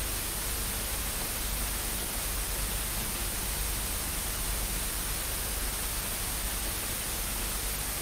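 Steady hiss of television static, even and unchanging.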